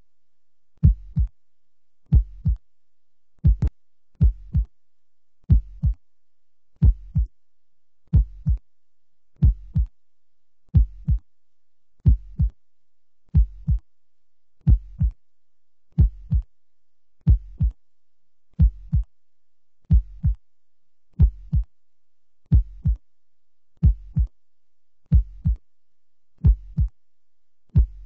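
Heartbeat sound effect: a slow, steady double thump, lub-dub, repeating about every 1.3 seconds.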